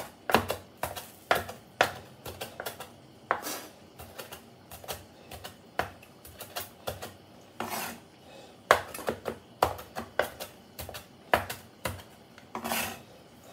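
Chef's knife chopping fresh green herbs on a wooden cutting board: irregular sharp knocks of the blade hitting the board, a few a second.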